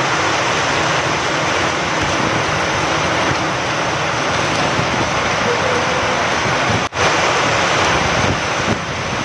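Steady heavy rain with wind, a dense even hiss. The sound cuts out for an instant about seven seconds in, then carries on a little quieter near the end.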